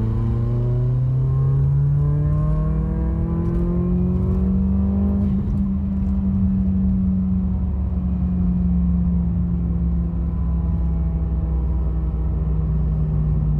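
Turbocharged car engine accelerating hard through a gear in a test pull for misfires, its pitch rising for about five seconds, then holding steady and easing off slightly.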